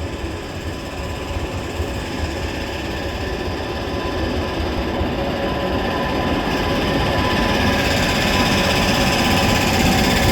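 Indian Railways WAP-7 electric locomotive approaching at speed with its train, growing steadily louder, with a faint steady whine running through the noise. The uploader calls the locomotive's sound abnormal.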